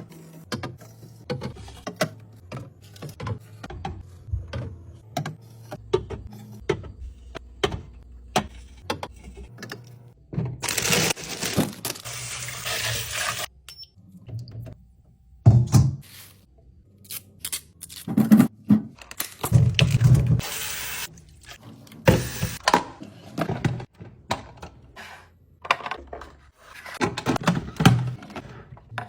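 Groceries and containers being handled and set down while restocking a fridge: a steady run of clicks, knocks and clunks. Running water for a few seconds about eleven seconds in, with shorter rushes of water or rustling later.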